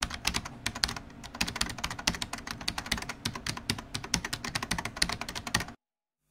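Rapid, irregular clicks, several a second, over a faint low hum, stopping suddenly near the end.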